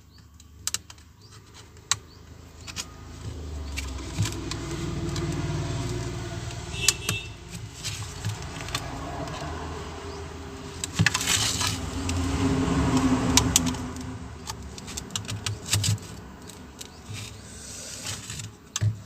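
Hands working open a plastic Bluetooth speaker's casing: scattered clicks, snaps and light rattles. Underneath runs a low rumble that swells twice, once in the first half and again past the middle.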